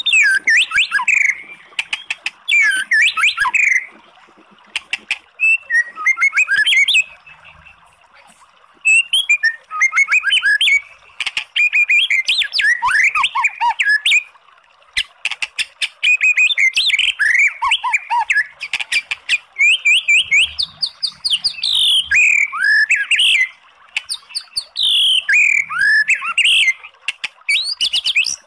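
White-rumped shama (murai batu) singing loud, varied phrases of quick rising and falling whistles mixed with sharp clicking notes, in bursts of a few seconds with short pauses between. It is a rival-challenging lure song, used to provoke a kept shama into answering.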